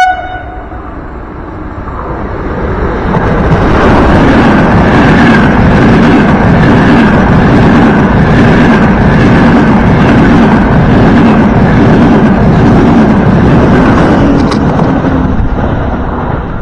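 Frecciarossa high-speed electric train running through the station at speed without stopping: the rush of wheels on rails and moving air builds over the first few seconds, holds loud and steady for about ten seconds with a faint regular clatter, then fades near the end as the train draws away.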